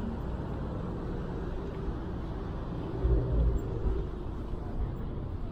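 Steady rumble of city street traffic on a wet road, with a louder low rumble for about a second, three seconds in.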